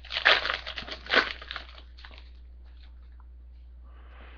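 Foil trading-card pack wrapper crinkling as it is torn open and handled, several crackly rustles in the first two seconds, then only faint handling.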